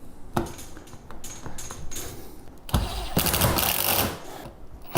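Small clicks and knocks of parts being handled, then a cordless power driver runs for about a second and a half, driving a fastener.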